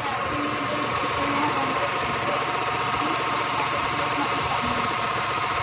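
Chery QQ's small petrol engine idling steadily.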